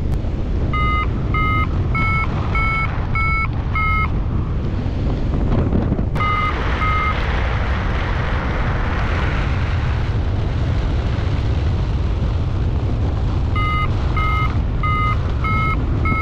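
Flight variometer beeping in short, evenly spaced tones, a little under two a second and creeping up in pitch, the sign of the glider climbing in lift; the beeps stop about four seconds in, come back twice near six seconds, then resume near the end and rise in pitch again. Steady wind rush on the microphone underneath.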